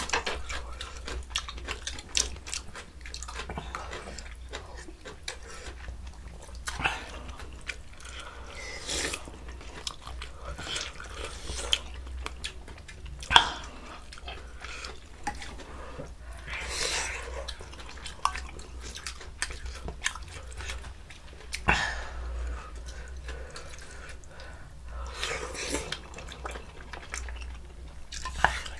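Mukbang eating sounds from a meal of spicy beef soup: chewing and slurping, with scattered sharp clicks of a spoon and chopsticks against bowls, and a few longer slurps about 9, 17 and 25 seconds in.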